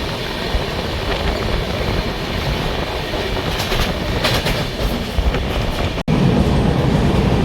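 Moving passenger train heard from inside the coach: a steady rumble of wheels on the track, with a few clacks over rail joints near the middle. The sound drops out for an instant about six seconds in and comes back with a louder, deeper rumble.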